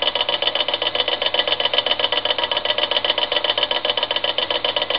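Small homemade steam turbine spinning at high speed on steam from a little copper boiler: a steady hiss with a fast, even rattling beat.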